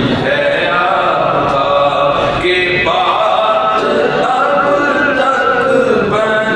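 A man's voice chanting in drawn-out melodic notes, with a brief break about two and a half seconds in.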